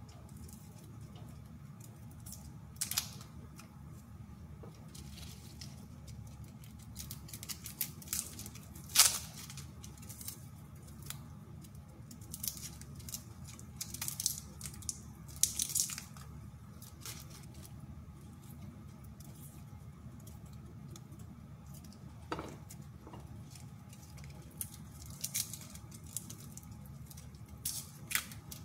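Dry, papery garlic skins crackling and tearing as cloves are peeled with a small knife: scattered irregular crackles and scrapes over a steady low hum.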